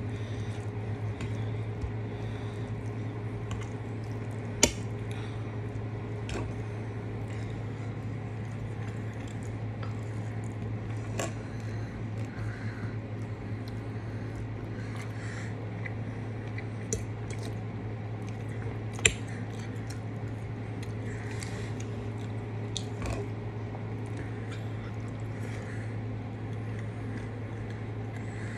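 A fork clinking and scraping on a ceramic dinner plate while cutting and picking up pot roast, with a handful of sharp clinks, two of them louder than the rest; soft squishy chewing and eating sounds between, over a steady low hum.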